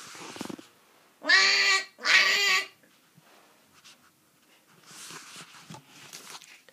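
Two loud comic honks in quick succession, each about half a second, made as a gag for someone's nose being honked. Softer rustling comes before and after.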